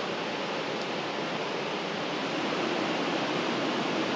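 River water rushing steadily beneath a footbridge, an even hiss of fast-flowing water.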